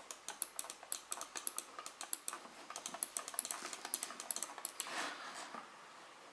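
Fast, irregular run of sharp clicks like typing, about five a second, with a short rustle about five seconds in; the clicking stops shortly after.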